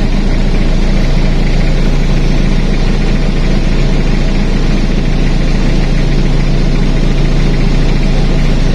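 An engine running steadily at a constant speed, with an unchanging low hum.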